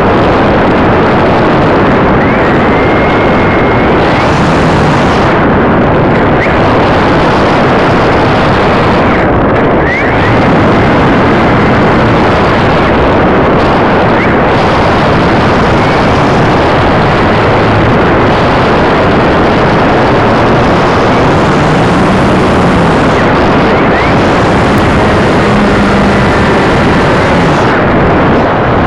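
Loud, steady rush of airflow buffeting the onboard camera's microphone on an RC glider in flight, with a few faint brief whistles.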